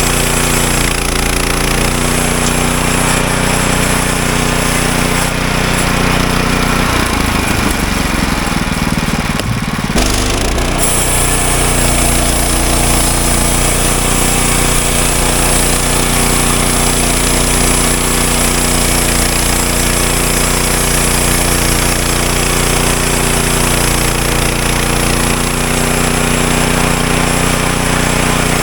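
Woodland Mills HM126 portable bandsaw mill running steadily with its engine under power, milling lumber. About a third of the way in the engine note wavers for a few seconds, then steadies, with more high hiss afterwards.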